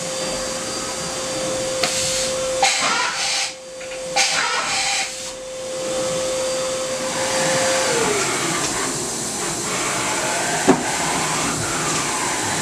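Hardinge VMC-800II CNC vertical mill running under power, its tool-changer carousel swinging in to the spindle: a steady whine that glides down in pitch about eight seconds in, with bursts of hissing noise in the first few seconds and a single sharp clack near the end.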